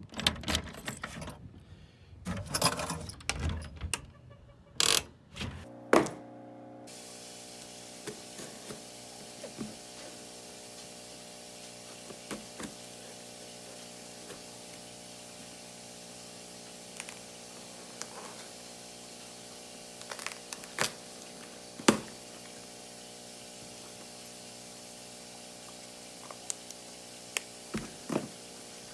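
Key working the lock of a metal cluster mailbox, with clanks, knocks and sharp clicks as the small door is handled, for about the first six seconds. Then a knife slits packing tape on a cardboard box and the box is handled and opened, giving scattered sharp clicks and knocks over a steady hum.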